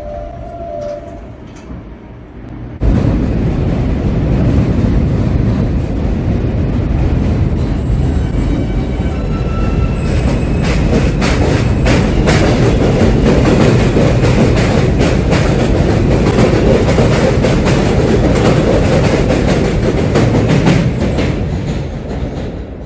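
New York City subway train passing close by. The noise of wheels and motors starts suddenly about three seconds in, with fast clicking of wheels over rail joints through the middle, and fades away near the end.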